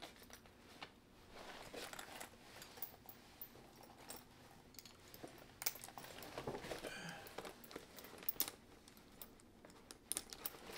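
Faint, scattered clicks and clinks of a Louis Vuitton Trio Messenger's metal hardware being handled as its separate pouches are clipped together.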